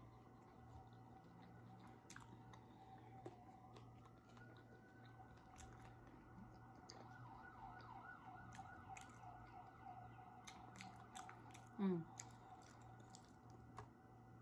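Faint siren wailing, its pitch rising about four seconds in and wavering after, under quiet chewing clicks. A short falling voice-like sound comes near the end.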